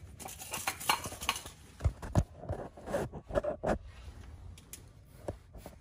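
Scattered knocks, taps and rustling from someone shifting about and handling parts and tools under a vehicle, with a cluster of louder knocks about two to four seconds in.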